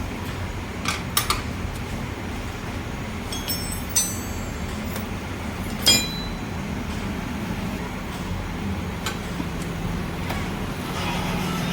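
Scattered metal clinks and clicks of tools and brake parts being handled while a motorcycle rear drum brake is refitted, some ringing briefly, the loudest about six seconds in, over a steady low rumble of traffic.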